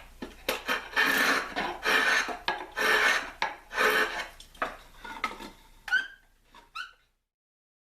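Hand tool rasping and shaving at a teak hammer-handle blank to shape it: long scraping strokes, roughly one a second, growing fainter and cutting off abruptly about seven seconds in.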